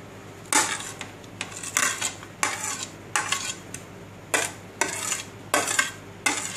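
Diced onion and green chili being scraped off a ceramic plate into a ceramic salad bowl: a dozen or so short, irregular scrapes and clinks of crockery.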